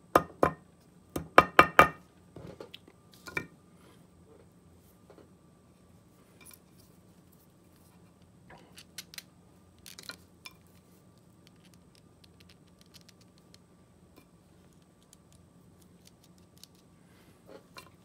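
Small brass-headed hammer tapping a slipped piece of a 3D-printed string ligature back into place: a quick run of sharp taps with a brief ring in the first two seconds. After that come scattered light clicks of small plastic parts being handled.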